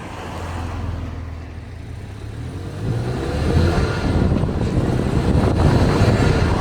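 Car driving and accelerating: engine and road noise grow louder over the first three seconds, then run on steadily loud.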